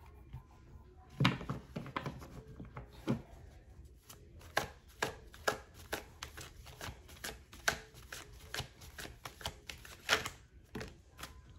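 A large deck of reading cards being shuffled by hand, overhand: an irregular run of light slaps and flicks as packets of cards drop from one hand onto the other. The loudest slaps come about a second in and near the end.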